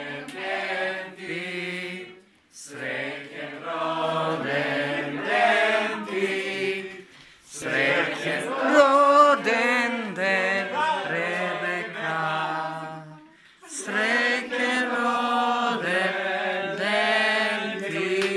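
A group of people singing a birthday song together, in four phrases with short breaks between them.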